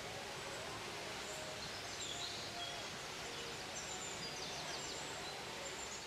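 Bomburu Ella waterfall's falling water making a steady rushing noise, with faint bird calls over it, including a quick trill about four and a half seconds in.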